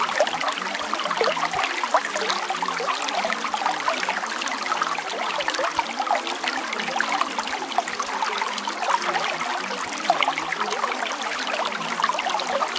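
Steady trickling of running water, a continuous stream of small splashes and gurgles.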